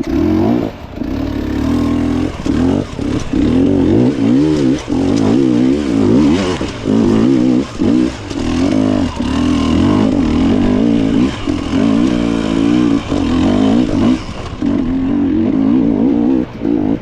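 Dirt bike engine revving hard up and down, the throttle chopped off and opened again over and over as the bike works through rough ground.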